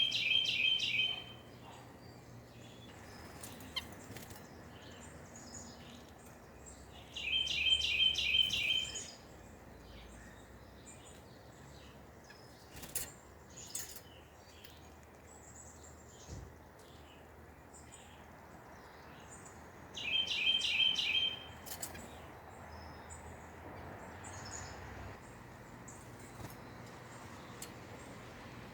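White-breasted nuthatch singing: a quick, even run of nasal notes lasting about a second and a half, given three times with long gaps between. A few faint clicks fall in the gaps.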